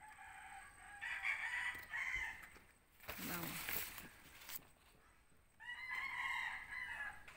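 A rooster crowing twice: a long crow at the start and a second, shorter crow about five and a half seconds in that falls away at its end. Between them is a short burst of noise.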